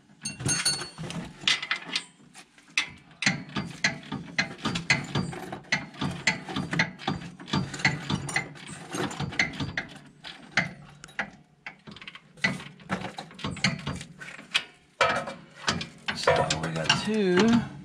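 Hand ratchet wrench clicking in quick, irregular runs while bolts on a transmission mount are turned, with metal tools clinking.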